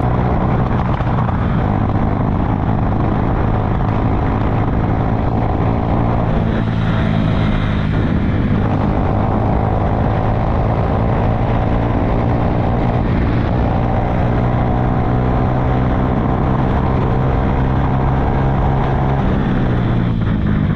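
Honda CG Fan's single-cylinder four-stroke engine running steadily, with small shifts in pitch, during a test of how it pulls at high revs after a carburetor adjustment; it was still bogging slightly at high revs.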